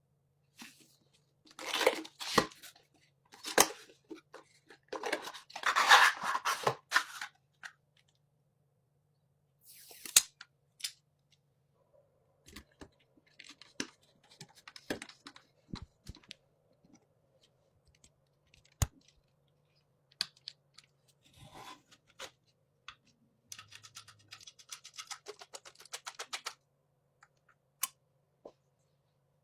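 Close-up handling noises of PC parts being assembled in a small case: rustling and scraping, loudest in the first several seconds, then scattered sharp clicks and a run of quick ticks near the end.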